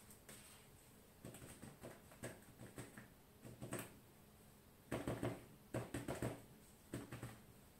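Crumpled aluminium-foil ball dabbed again and again against paper, stamping on paint: a run of soft taps, with a louder, quicker cluster of them about five seconds in.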